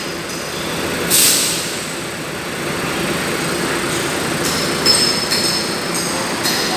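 A large coach bus moving slowly with its engine running. About a second in there is a short burst of air hiss, and from about halfway on come repeated short, high-pitched squeals.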